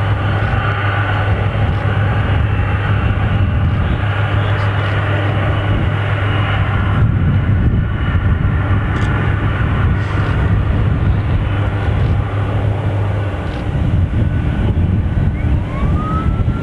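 Boeing 747's jet engines running at taxi power: a loud, steady rumble and whine, with a strong low hum that drops away about 13 seconds in. A short rising whistle comes near the end.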